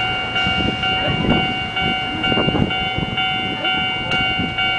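A level-crossing alarm rings steadily over the low rumble and knocks of an Odakyu 50000-series Romancecar VSE running slowly into the station.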